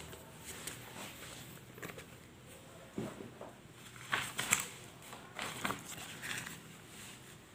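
Faint scattered rustles and soft clicks of a book and paper sheets being handled, loudest a little past the middle.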